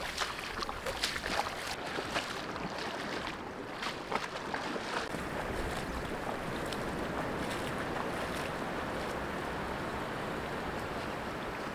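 Steady wash of shallow surf with wind buffeting the microphone, and scattered clicks over the first few seconds.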